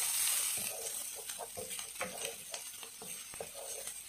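Chopped onion, garlic and ginger sizzling in butter in a pan, being sautéed until they brown, with a wooden spatula scraping and tapping against the pan as it stirs. The sizzle is strongest in the first second or so and then eases.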